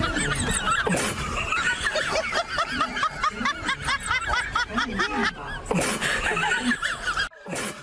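Rapid, high-pitched snickering laughter that cuts off suddenly near the end.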